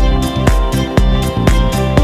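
Background music with a steady beat, about two strong hits a second with lighter ones between, over sustained instrumental tones.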